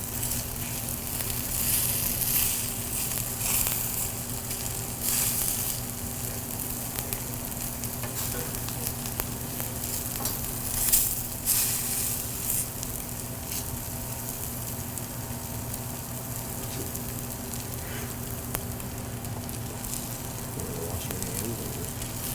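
Potato pancakes sizzling in butter and oil in a frying pan, a steady hiss that flares louder a few times, with one sharp louder moment about halfway through. A steady low electrical hum runs underneath.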